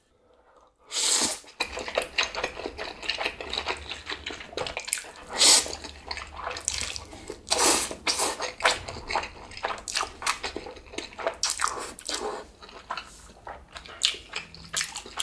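Chapagetti black bean noodles in sauce and chili oil being mixed and eaten, with irregular wet, sticky squelching and slurping. There is a second of near silence at the start.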